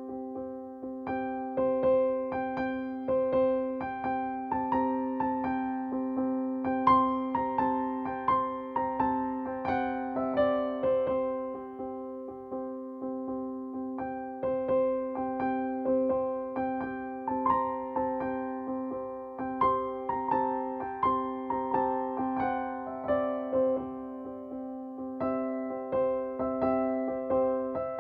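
Soft keyboard music, electric piano or piano: a held low chord under a melody of single picked notes, with two falling runs of notes partway through.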